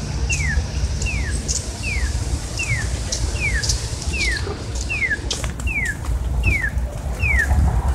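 Pedestrian crosswalk signal chirping: a short falling chirp repeated at a very even pace, about every three-quarters of a second, over the low rumble of street traffic.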